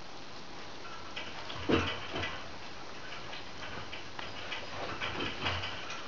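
Puppy's claws scratching and tapping on a towel-covered wooden ramp and platform as it clambers about: a string of light scuffs and ticks, the loudest about two seconds in.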